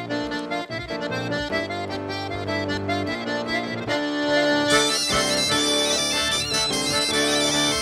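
Traditional Breton dance music played live, an accordion carrying the tune; about five seconds in a shrill, louder wind instrument joins with a bright, high melody.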